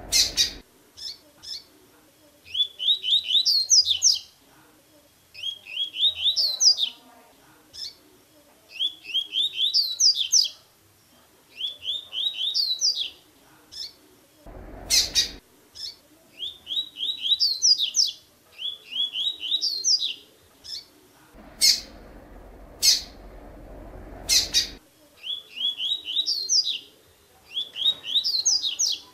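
Double-collared seedeater (coleiro) singing the 'tui-tui' song type: a phrase of quick rising whistled notes climbing to a few higher notes, repeated about every three seconds, with short sharp calls between. Two stretches of rustling noise cut in, briefly about halfway through and for about three seconds near the end.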